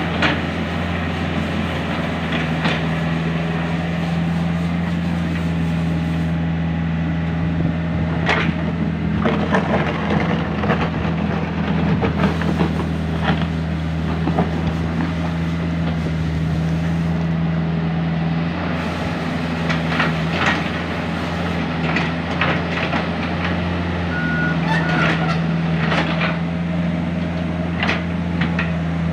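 Komatsu PC45 mini excavator's diesel engine running steadily at working speed, with scattered short clanks and knocks as it works the fill soil.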